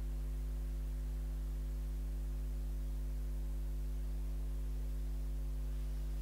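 Steady low electrical mains hum with a few higher overtones, unchanging throughout; no other sound stands out.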